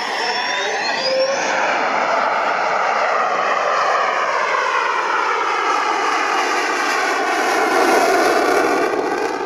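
F-16 fighter jet's engine passing in a display flypast: a loud, continuous rushing jet noise with a slowly shifting, phasing tone. It swells to its loudest about eight seconds in, then begins to fade.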